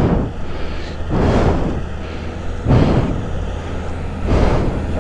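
Motorcycle engine running steadily while the bike fords a shallow mountain stream, with surges of splashing and rushing water about every second and a half.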